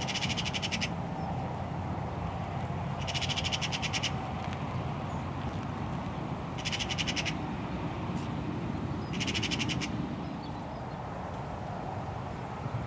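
Eurasian magpie chattering: four short, rapid rattling bursts about three seconds apart, over a steady low background noise.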